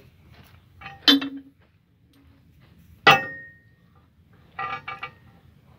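Two sharp metal-on-metal clangs about two seconds apart, each ringing briefly, from tools striking the steel track chain guard and undercarriage of an excavator during repair.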